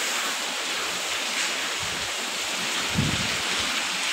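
Heavy rain pouring steadily, an even hiss, with a brief low rumble about three seconds in.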